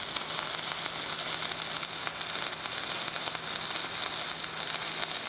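Stick-welding arc of a 1/8-inch 6010 electrode crackling steadily as a bead is run with a whip-and-pause motion, over a low steady hum.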